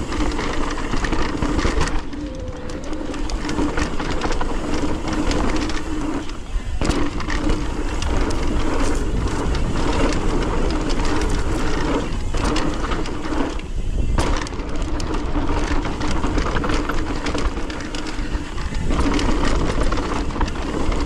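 Mountain bike riding down a dirt singletrack: the rear freehub buzzes steadily while coasting, over tyre noise on dirt and wind on the microphone. The buzz drops out briefly twice, about a third and two thirds of the way through.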